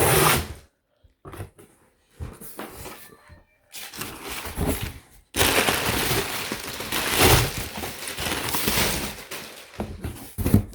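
A large cardboard shipping box being opened and its contents handled: cardboard and packing scraping and rustling in bursts, then one long stretch of rustling and scraping, with a few thumps.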